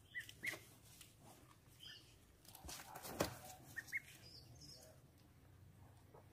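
Short, high chirping calls, coming in pairs near the start and again about four seconds in, with a single sharp knock just after three seconds.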